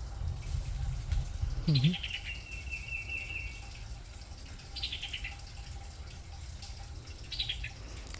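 A songbird singing three phrases, each a quick falling run of high notes, the first trailing off into a level trill; a low rumble sits under the first two seconds.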